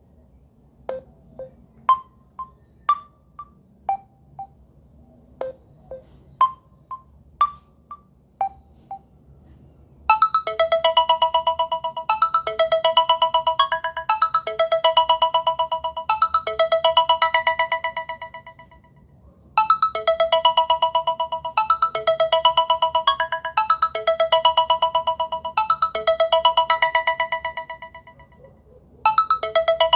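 Samsung Galaxy A20s ringtones. The first ends in sparse, short knocking notes. About ten seconds in, a louder ringtone starts: a fast-pulsing melodic phrase that fades out and repeats about every nine and a half seconds.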